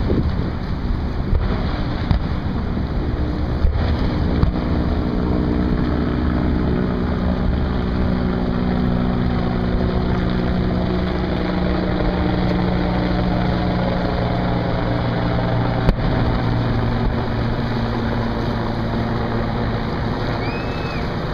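A motorboat engine runs steadily with a low hum, over wind rumbling on the microphone and water noise. The hum fades somewhat in the last few seconds.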